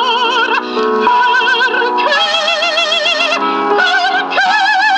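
A 78 rpm opera record playing through a vintage radio-phonograph's speaker: a woman sings high notes with a wide, wobbling vibrato over a steady accompaniment. The sound is thin, with no bass.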